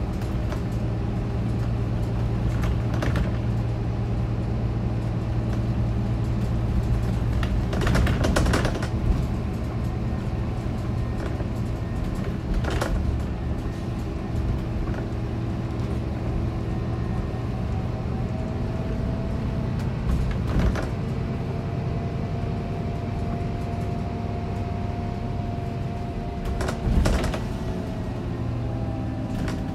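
Scania K410 coach's six-cylinder diesel and road noise heard from inside the passenger saloon while on the move: a steady drone with a higher whine that steps up in pitch partway through. A few short knocks and rattles, the loudest near the end.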